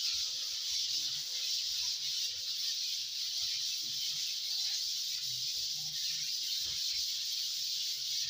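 Hand sanding of dried wall putty on a ceiling with 180-grit waterproof sandpaper: abrasive paper rubbing over the plaster, making a steady, high hiss.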